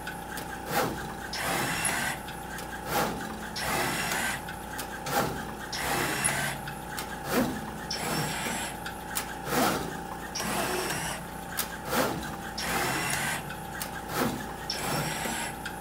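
DDM Novastar LS60V pick-and-place machine running a placement program: its head moves back and forth with a motor whine that sweeps up and down in pitch about once a second, over a steady hum, with sharp clicks throughout.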